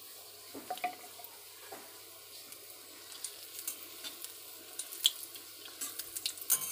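Tempering spices and a bay leaf sizzling and crackling in hot mustard oil in an aluminium kadai while a metal spatula stirs them. Sharp pops break through the steady sizzle, more of them near the end.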